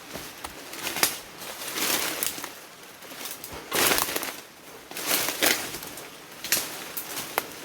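Footsteps crunching along a rough track, uneven steps about once a second.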